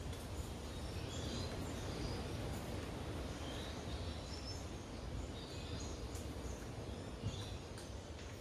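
Steady low background noise with small birds chirping now and then.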